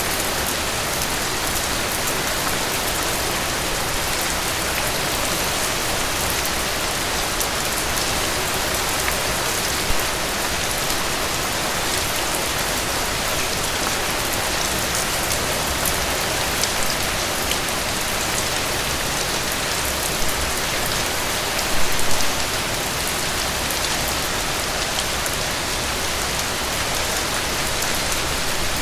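Heavy rain falling steadily: a dense, even hiss of rain with scattered individual drop taps, and brief louder spatters about 10 and 22 seconds in.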